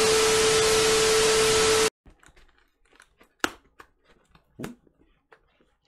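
A loud burst of TV static with a steady beep tone for about two seconds, a glitch transition effect, which cuts off suddenly. Then scissors snip and crunch at the packing tape and cardboard of a shipping box in scattered quiet clicks.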